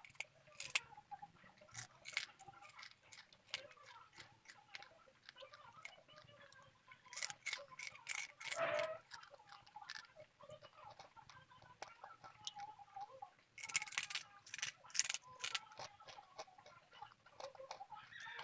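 Close-miked chewing of crisp, hard food: sharp crunching clicks in clusters, busiest about seven to nine seconds in and again around fourteen to fifteen seconds in.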